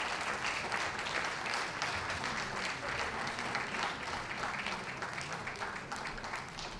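Audience applauding, a dense patter of many hands clapping that tails off a little toward the end.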